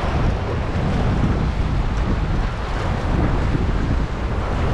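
Strong wind buffeting the microphone: a steady, heavy low rumble with no let-up.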